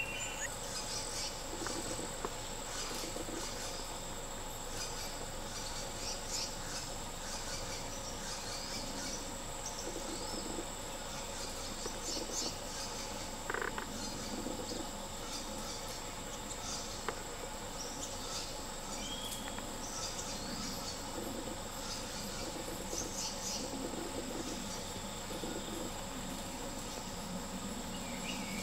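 Steady high-pitched buzz of forest insects, with short chirps scattered through it.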